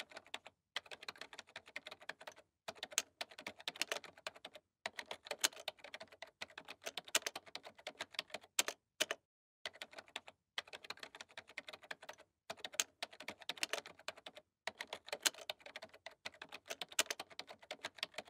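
Rapid keyboard typing clicks in runs of one to two seconds, with short pauses between them.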